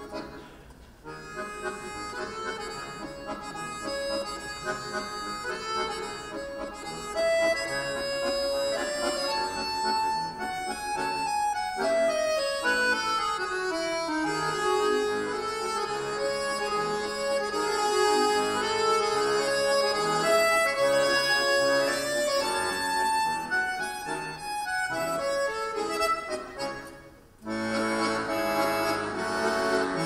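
Two chromatic button accordions (bayans) playing a duet, with a falling run of notes about halfway through. Near the end the music drops away briefly, then comes back in loudly.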